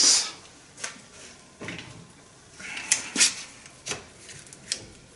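Irwin Quick-Grip one-handed bar clamp being fitted and squeezed tight across a glued-up laminated wood block: a series of separate clicks and knocks, roughly a second apart, from the clamp's trigger and jaws and from handling on the bench.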